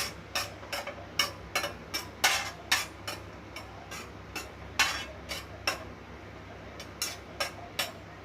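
A metal spoon clinking and scraping against a pan in quick, irregular strokes while cashews are stirred and roasted, the strokes thinning out near the end.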